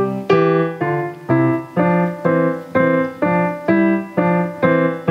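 Digital keyboard played with a piano voice: single notes of a simple melody struck at an even pace of about two a second, each fading before the next.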